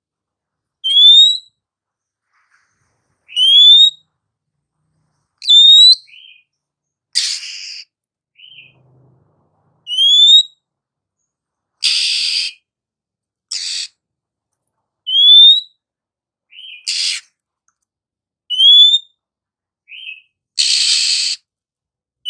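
Female oriental magpie-robin calling: a short rising whistle repeated every two to three seconds, each followed by a brief lower note, with four harsh rasping calls in between. These are the female calls that keepers play to provoke a male into answering and singing.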